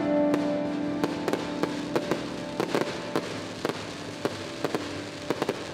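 Fireworks going off: scattered sharp cracks and pops, several a second and irregularly spaced, while music fades out underneath.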